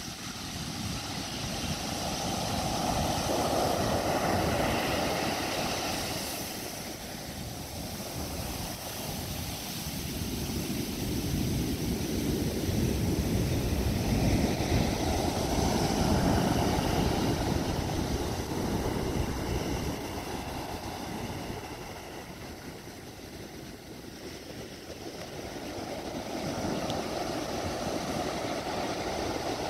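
Heavy Pacific surf breaking on a sand beach: a deep, steady rumble of crashing waves and washing foam that swells and eases in long surges, about three times, as successive sets come in.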